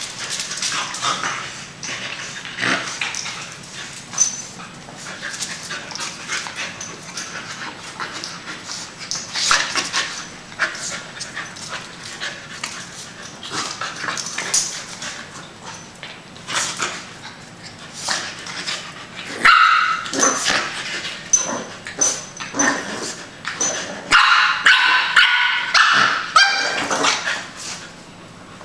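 A Boston Terrier puppy and a corgi playing rough: barks, yips and whimpers over scuffles and short clicks, with the barking at its loudest and densest in the last third.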